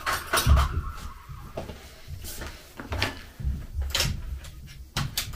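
Kitchen utensils knocked about while someone rummages at the counter for a teaspoon: a series of sharp clicks and clatters, with a few low thumps of footsteps.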